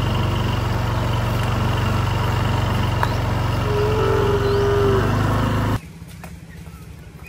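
A cow gives one long drawn-out moo about four seconds in, over a loud, steady low mechanical drone. The drone cuts off suddenly about six seconds in, leaving quieter background with faint chirps.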